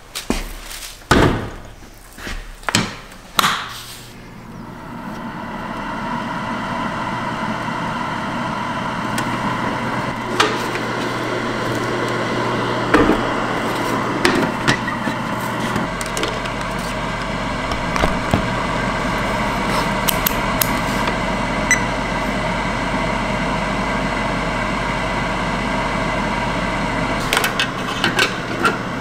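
A few sharp plastic knocks and clatters, then about four seconds in the Rosewill food dehydrator's fan motor starts up into a steady hum and keeps running, with occasional light clicks of the plastic trays being handled over it.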